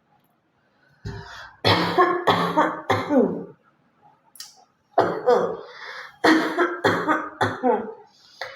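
A woman coughing in two bouts: about three coughs starting a second or so in, then after a short pause a longer run of about five more, each cough voiced and falling in pitch.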